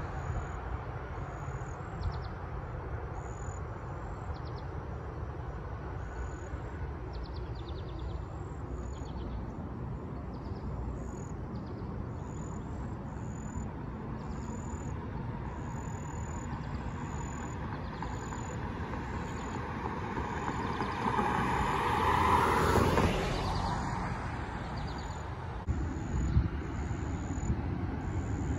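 Street traffic ambience with a steady low rumble; a motor vehicle drives past close by about three-quarters of the way through, growing louder and then fading.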